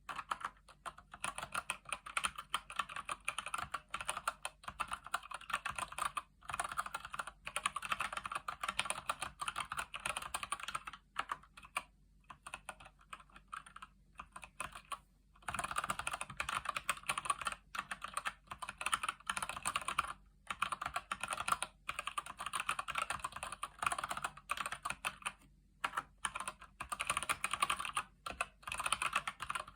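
Fast, steady typing on a Keychron C1 mechanical keyboard with Gateron Brown tactile switches, a rapid stream of keystroke clicks. About a third of the way in the typing slows to a few scattered keystrokes for roughly four seconds, then picks up again at full speed.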